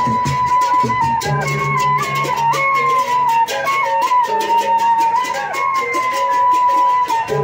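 Traditional Sasak procession music from a gendang beleq–style ensemble: a wind instrument plays a wavering, stepping melody over fast, dense clashing percussion, with low gong tones sounding in stretches.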